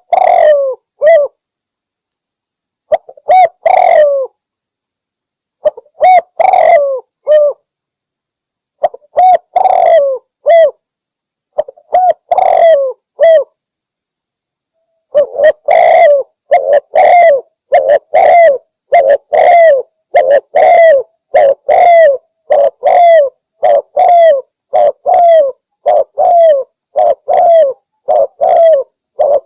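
Spotted dove cooing. Short phrases of three or four coos come every few seconds, then after a brief pause a steady run of repeated coos, a little over one a second.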